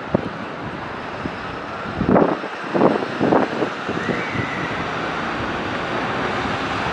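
A coach bus driving slowly past as it pulls out and turns, its engine running under steady traffic noise. Wind buffets the microphone in several gusts about two to three seconds in.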